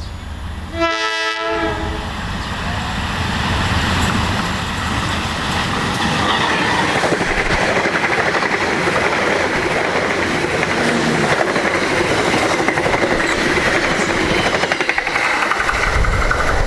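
A diesel locomotive's horn sounds one short blast about a second in, then a long passenger train runs past at speed, its wheels clattering steadily over the rail joints.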